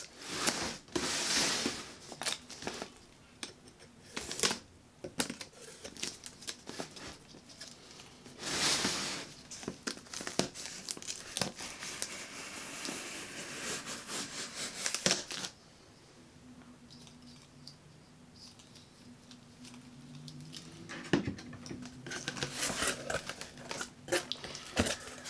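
Packing tape on a cardboard shipping box being slit with a knife and pulled off: a string of sharp scrapes and tearing rips for about fifteen seconds. After that it is quieter, with cardboard flaps folded open and light rustling against a styrofoam liner near the end.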